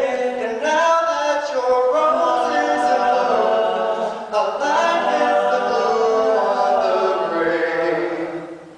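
Male a cappella quartet singing in close harmony, several voices holding chords together, fading into a brief pause near the end.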